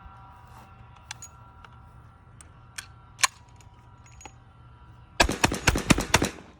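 Rapid string of shotgun shots from a semi-automatic bullpup shotgun, about ten sharp reports packed into just over a second near the end. A few lighter clicks and knocks come before them.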